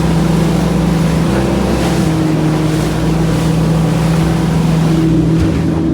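Boat engine running steadily under way, with the rush of wind and water over it.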